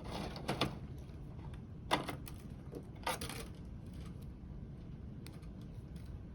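Small Milwaukee adjustable wire stripper clicking shut and pulling insulation off a thin stranded wire: a few short clicks and snaps near the start, about two seconds in and about three seconds in.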